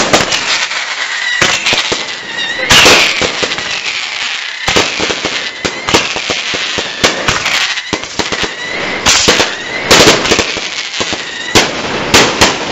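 Firecrackers going off in a rapid, irregular string of loud sharp bangs, with a steady crackle between them and a thin high whistle underneath.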